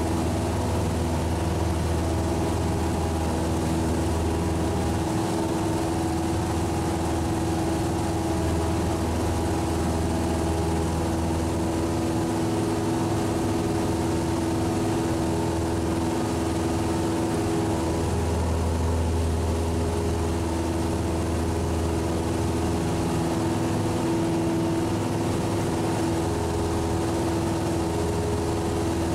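Cessna 172's piston engine and propeller running at a steady, unchanging drone, heard inside the cabin in flight.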